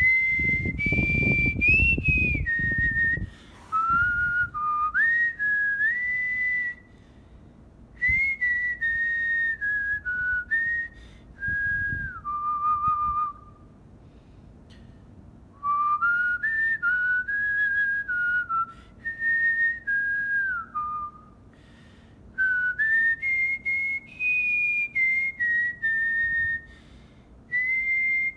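A man whistling a tune through pursed lips, a single clear note stepping up and down from phrase to phrase, with short pauses between phrases.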